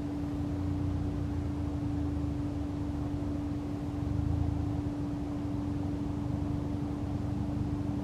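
Steady machine hum, one unwavering low tone, over a low rumble that swells briefly about four seconds in.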